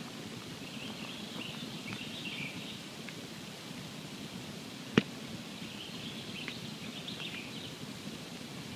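Wood campfire burning with a steady low rumble and a few small crackles, and one sharp loud pop about five seconds in.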